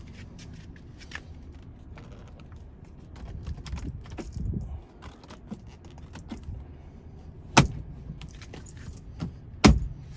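Small plastic clicks and rattles of the airbag module and its wire plugs being handled, then two sharp snaps about two seconds apart near the end as the airbag module clips into the BMW E46 steering wheel.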